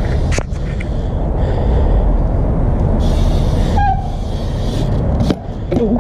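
BMX bike rolling on skatepark concrete: a steady low rumble, with a sharp knock about half a second in and another just after five seconds.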